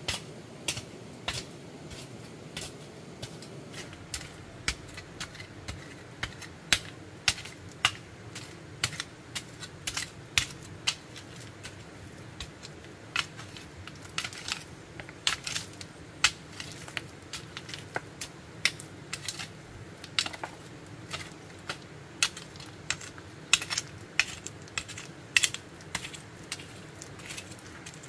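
A long run of irregular, sharp clicks and snaps, about two or three a second, over a low steady hiss.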